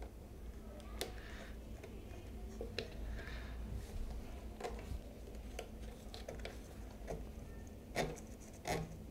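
Faint clicks and rubbing as flux-cored welding wire is fed by hand into a MIG welder's wire-feed drive rollers, with a couple of sharper clicks near the end.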